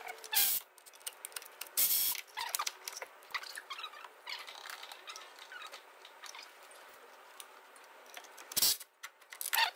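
Hand-tool work on the engine mount bolts: scattered small metallic clicks and rattles, with three brief louder scraping sounds about half a second in, about two seconds in, and near the end.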